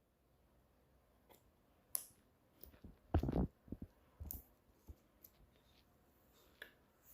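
Scattered small clicks and light rustles of handling, loudest in a short cluster about three seconds in.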